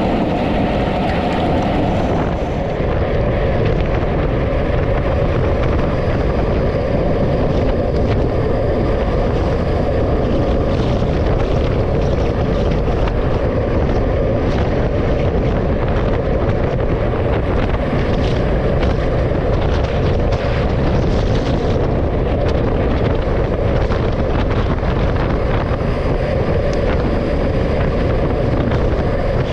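Steady rush of wind on a moving microphone, mixed with the running noise of a road vehicle, unbroken throughout.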